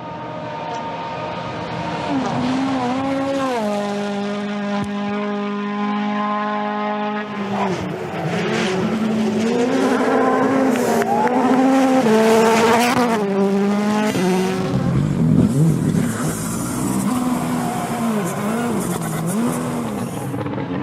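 Rally car engine revving hard, its pitch rising and falling with throttle and gear changes, with tyre and loose-surface noise. The sound changes abruptly about seven seconds in and again near fourteen seconds.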